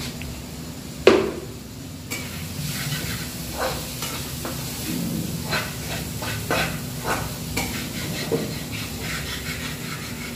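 Metal ladle stirring and scraping a steel kadhai of onion, tomato and soya-chunk masala sizzling in oil, in repeated uneven strokes. A sharp knock comes about a second in, and the sizzle grows louder about two seconds in.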